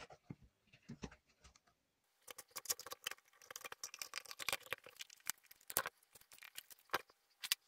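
Plastic screw-cap lid and wires being handled and fitted onto a plastic container: scattered clicks at first, then a dense run of quick clicks, scrapes and rustling from about two seconds in.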